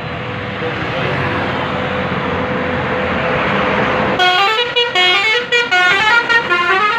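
Tour bus's multi-tone musical air horn (Basuri "telolet" type) playing a stepped tune of changing notes from about four seconds in. Before that comes a steady rushing noise with one held note.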